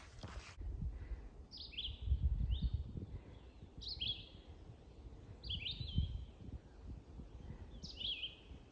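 A songbird calling, about five short chirps each sweeping downward in pitch, spaced a second or two apart. Underneath runs an uneven low rumble with a few dull thumps, loudest a couple of seconds in.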